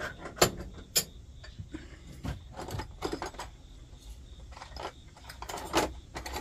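Small metal parts clinking and tapping on a workbench as they are handled: a scattered series of light sharp clicks and knocks, with a little cluster about three seconds in and another near the end.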